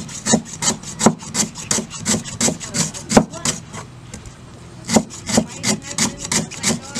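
A steel cleaver chopping lemongrass on a round wooden chopping block: crisp, even knocks about three a second, with a short pause a little past halfway before the chopping resumes.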